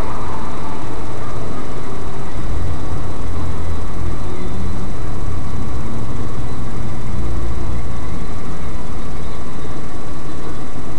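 Nissan GT-R's twin-turbo V6 idling, heard inside the cabin as a loud, steady rumble and hiss.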